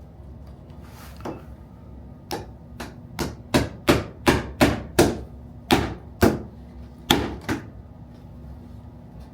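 Hammer blows, a run of a dozen or so sharp strikes at roughly three a second, loudest in the middle, ending with two last blows after a short pause.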